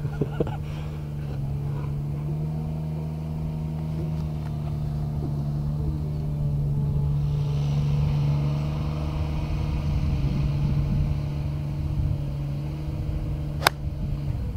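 Golf cart engine running steadily while the cart drives, as a low, even hum that swells a little midway and cuts off abruptly near the end. There is one sharp click shortly before the cut.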